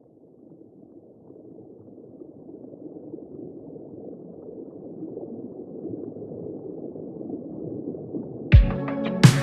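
A muffled, rushing noise, like dulled surf or water, swells slowly from faint to moderate. Near the end, electronic music with heavy drum hits starts abruptly.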